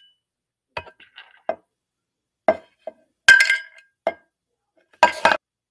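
An empty metal soup can clinking and knocking as it is handled and seeds are dropped into it: about eight short sharp hits, the loudest about three seconds in and again near the end, some ringing briefly like tin.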